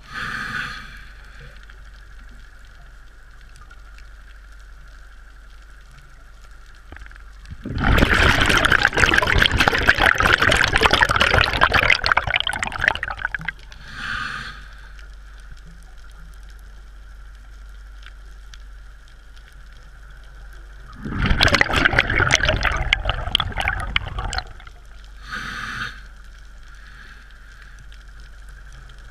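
Scuba diver breathing through a regulator underwater. There are short hissing inhalations at the start, around halfway and near the end, and two long rushes of exhaled bubbles of about four to five seconds each.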